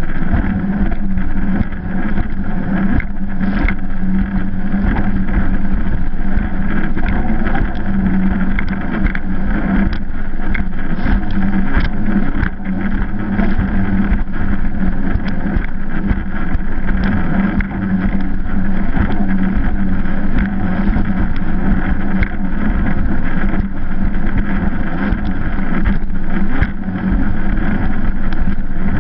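Yamaha VX jet ski running under way across choppy water: a steady engine drone with the splash and hiss of water and frequent brief knocks as the hull meets the chop.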